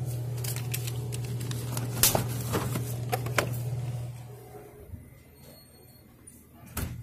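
Clicks and light clatter of beer packs and wire cooler shelving being handled at an open glass-door beer cooler, over a steady low hum that fades out about four seconds in. One sharp knock near the end.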